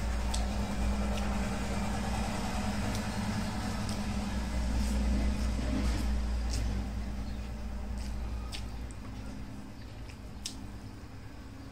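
Eating rice by hand: scattered short wet clicks of chewing and of fingers working the rice on the plate, over a low steady hum that fades about two-thirds of the way through.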